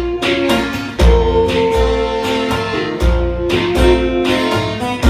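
Instrumental music with guitar, held notes over a regular low beat and light percussion.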